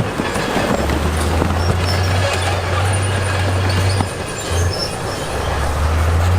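Diesel engine of heavy earthmoving machinery running, its pitch shifting a few times, with metallic squealing and clatter over it, like a crawler bulldozer's steel tracks.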